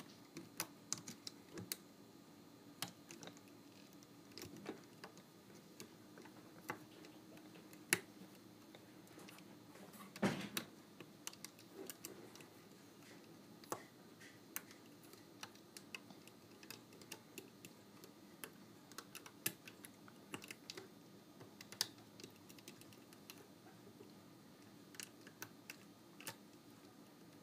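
Faint, irregular clicks and taps of a plastic hook against the plastic pegs of a rubber-band loom as bands are hooked and pulled over, with a louder knock about ten seconds in.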